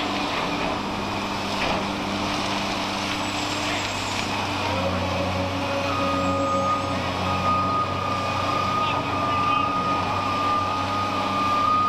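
Diesel engines of two working hydraulic excavators, a Volvo and a yellow machine, running steadily with a low drone. From about six seconds in, a steady high electronic-sounding tone joins them.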